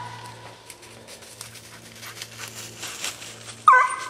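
Hunting dog barking: the ringing tail of one bark at the start, a spell of rustling in between, then one loud bark near the end.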